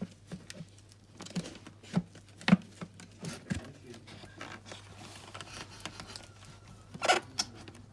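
Plastic parts of a Dyson vacuum cleaner being handled and unlatched by hand: scattered clicks and knocks, the loudest about two and a half seconds in, and a short rattling cluster near the end. The motor is not running.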